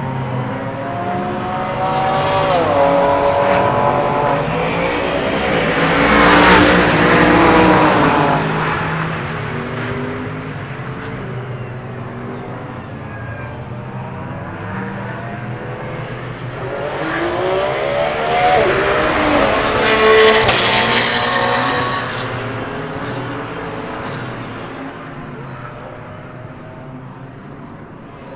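Race cars passing at speed, one after another: two loud pass-bys about seven and twenty seconds in, each engine note swelling and then dropping in pitch as it goes by and fades away.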